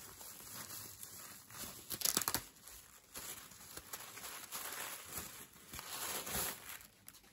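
Bubble wrap crinkling and rustling as it is handled and pulled open, loudest in a flurry about two seconds in.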